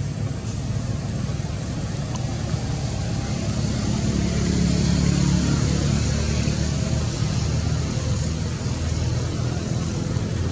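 A low engine rumble that swells to its loudest about halfway through and then fades, like a motor vehicle passing.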